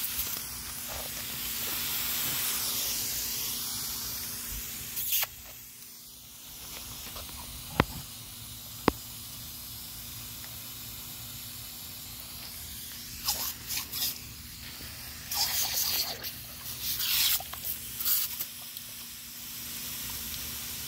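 Water jetting from a pistol-grip garden hose spray nozzle, a steady hiss with several louder bursts of spray in the second half. Two sharp clicks come about a second apart near the middle.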